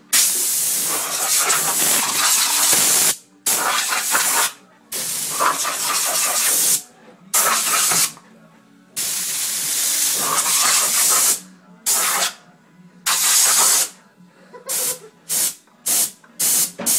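Compressed air hissing from an air-hose blow gun, fired in a string of long blasts of one to three seconds each, then several short quick bursts over the last few seconds.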